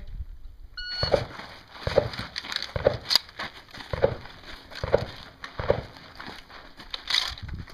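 Shot timer's start beep, then a string of about seven shotgun shots, roughly one a second.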